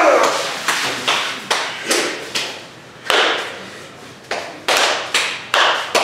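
About a dozen sharp slaps and thuds at irregular spacing, roughly two a second, each fading quickly: flesh striking flesh during sumo wrestlers' practice.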